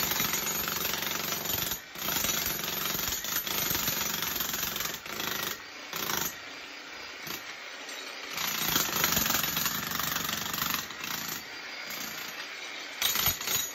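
Demolition hammer chiselling through a concrete floor slab: rapid hammering that runs in stretches with brief pauses between them.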